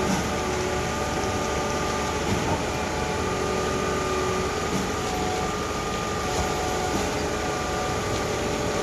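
An engine running steadily, a constant hum with several steady tones over a noisy background.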